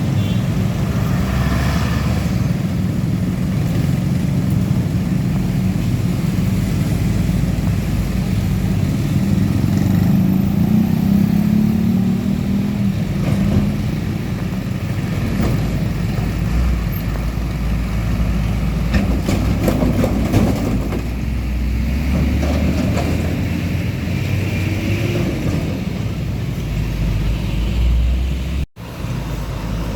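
Heavy diesel truck engines running on the road, a steady low rumble that rises and falls as trucks pass, with a sudden brief break near the end.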